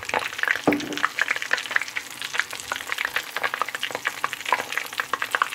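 Cumin seeds spluttering in hot oil: a dense, irregular crackle of small pops over a sizzle. The seeds have crackled, the sign the oil is hot and the tempering is ready for the garlic and onion.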